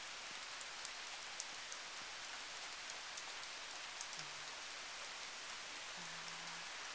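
Faint steady hiss of wet snow falling, with scattered light ticks as it lands on surfaces.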